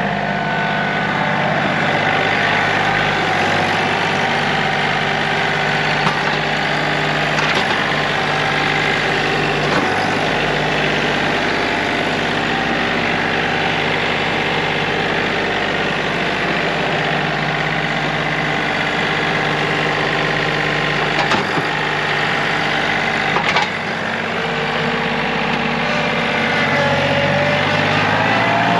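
A vehicle engine running steadily, with a few sharp knocks spaced out over it.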